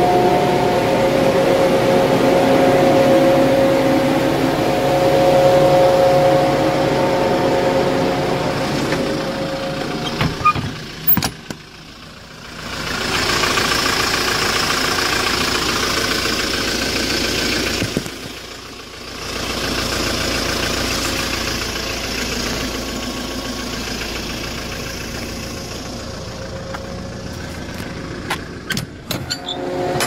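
Refrigeration unit of a 2007 Hyundai Porter II refrigerated truck running with the engine idling. For the first several seconds the ceiling evaporator fans give a steady two-note hum inside the insulated box. After a brief dip with a few clicks, a steady running noise from the idling diesel engine and machinery is heard beside the chassis.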